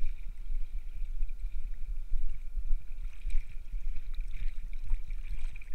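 Wind rumbling and buffeting on the microphone outdoors, with a faint steady high-pitched hum above it.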